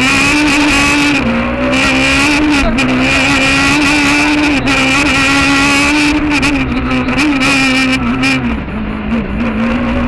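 Peugeot 306 Maxi kit car's 2-litre four-cylinder rally engine heard from inside the cabin, running hard at high revs with brief dips in pitch several times. Near the end the revs drop lower and rise and fall more.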